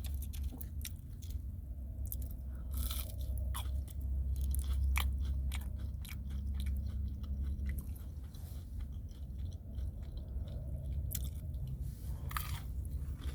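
A person chewing and biting food close to the microphone, with repeated short crunches and wet mouth clicks, over a steady low hum.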